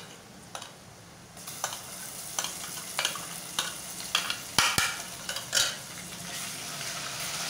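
Ginger-garlic paste frying in hot oil with browned onions in a metal pot, the sizzle starting about a second and a half in and building. A silicone spatula stirs it, knocking and scraping against the pot many times.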